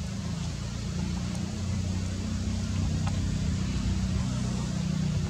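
Low, steady engine rumble of a motor vehicle running nearby.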